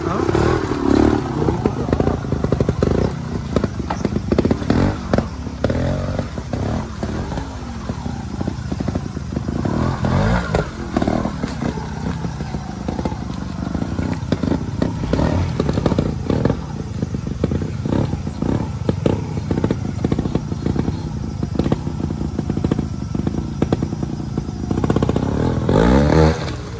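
Trials motorcycle engine running at low revs and blipping, with revs rising and falling about a second in and again near the end, while the bike is worked over logs and rocks; many short knocks and clatter from tyres and chassis striking the obstacles.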